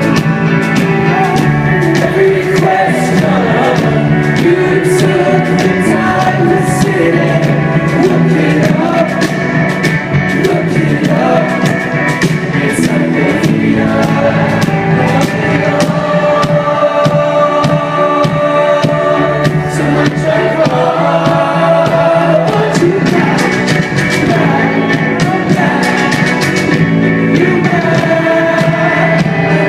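Indie rock band playing live with sung vocals over drums and guitars, continuous and loud.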